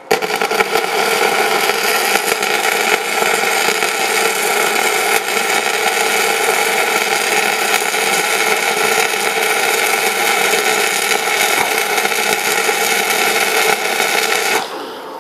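Gasless flux-cored MIG welding arc from a Novoarc MIG-200GB, run with the nozzle removed, crackling steadily as the wire burns into a 10 mm steel plate, cutting off shortly before the end.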